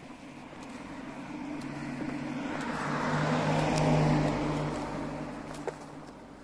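A road vehicle passing by, growing louder to a peak about four seconds in and then fading, over a steady low hum.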